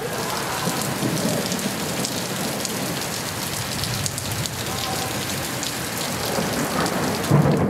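Steady rain falling on pavement, a dense patter of drops, with a brief low thud near the end.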